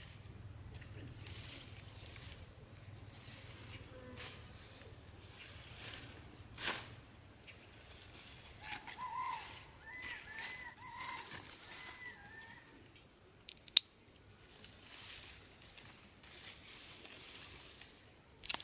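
Rural outdoor ambience: a steady high-pitched insect buzz, a few short bird calls about nine to twelve seconds in, and scattered light knocks with one sharp click near fourteen seconds.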